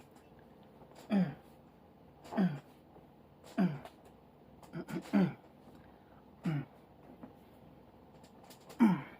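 A person's short voiced groans, about seven, each dropping in pitch, coming roughly once a second with a longer pause before the last.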